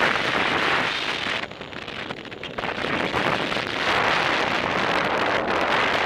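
Airflow rushing over the microphone of a paraglider in flight, a loud rushing that eases for a moment about two seconds in and then builds again.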